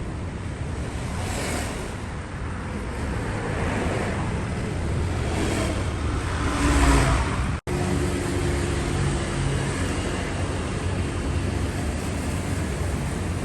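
A car running, with whooshing swells of noise in the first half. The sound drops out briefly about seven and a half seconds in, then a steady low hum carries on.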